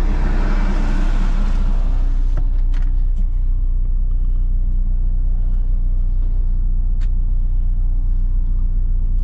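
MINI Cooper engine idling in Drive with the car standing still, a steady low hum heard inside the cabin. For the first two seconds or so a rushing hiss of outside traffic sounds over it, then cuts away as the power window shuts.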